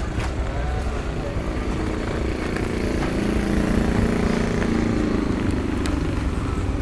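A road vehicle's engine passing, growing louder to its peak about three to five seconds in and then easing off over a steady low traffic rumble.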